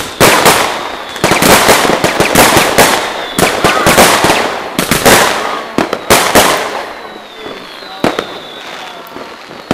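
New Year's Eve fireworks and firecrackers: a rapid, dense string of bangs and crackling for about six and a half seconds, then thinning to a few scattered bangs with a high whistle that slowly falls.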